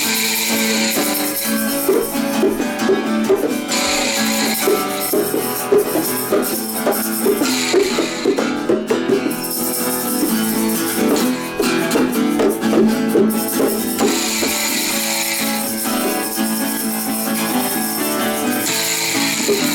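Instrumental music: a guitar picking notes, with hand percussion shaken in short rattling bursts every few seconds.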